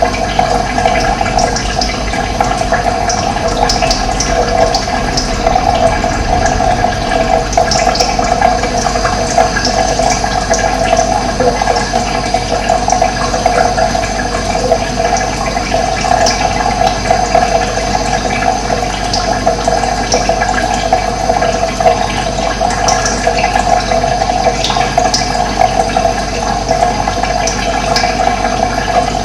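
Running water flowing steadily with a dense, even rush, and brief high bird chirps here and there over it.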